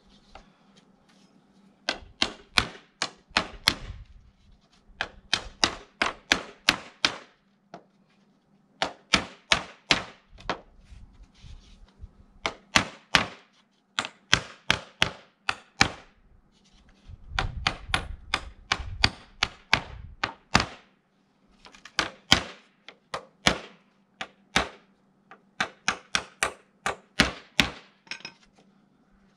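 Rapid clicking of a pop-up tent trailer's crank lift winch as the roof is cranked, about four to five clicks a second in bursts of about two seconds with short pauses between. A duller low thumping comes in around two-thirds of the way through.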